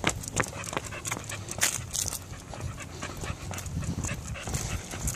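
Pit bull panting with her mouth open as she walks at heel, over footsteps clicking on a concrete sidewalk a few times a second.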